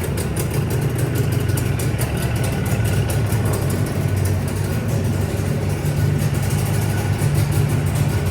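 Jawa 350 type 638 two-stroke twin engine idling steadily while warming up, its idle set slightly high, just after a new piston and ring set was fitted.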